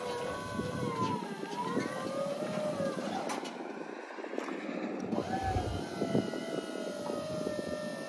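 Terex TS30 scissor lift's electric hydraulic pump motor whining as the platform raises, with light rattling from the scissor arms. The pitch wavers, then steps up about five seconds in and holds steady.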